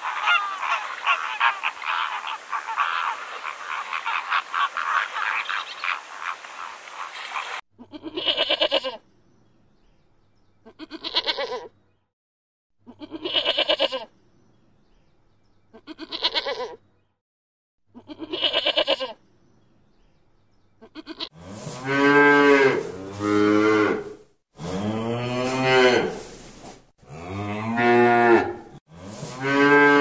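A flock of flamingos honking and chattering, many calls overlapping, cutting off sharply about eight seconds in. Then a sheep bleats five times, about every two and a half seconds. From about twenty-one seconds on, cows moo repeatedly in long, loud calls.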